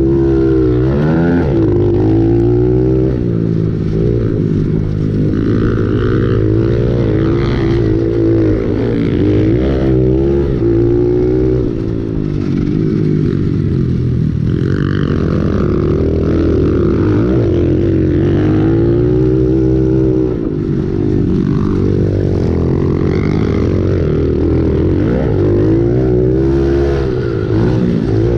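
Pit bike engine heard on board, revving hard and easing off over and over as it is raced round a dirt track; its pitch climbs through each gear and drops back at shifts and turns.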